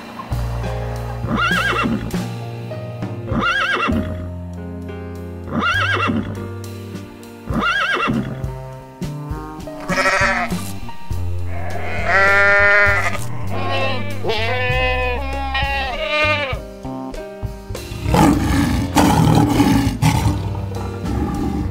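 Goats bleating over steady background music: several long, wavering bleats in the middle. Earlier, a short rising-and-falling call repeats four times about every two seconds, and near the end comes a lion's roar.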